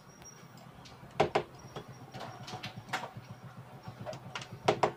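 Scattered sharp clicks and knocks with light scraping from a TV circuit board and soldering tools being handled while a three-legged output transistor is desoldered. The loudest knocks come a little over a second in and near the end.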